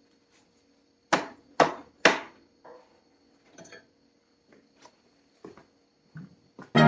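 Three loud hammer blows about half a second apart, then several lighter knocks, as a bent part is beaten straight.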